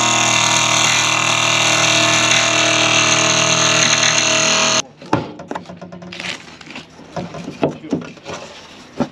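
Jigsaw cutting through the truck's roof panel to make the opening for a roof fan, running steadily at full speed, then cutting off abruptly about five seconds in. A few light knocks follow.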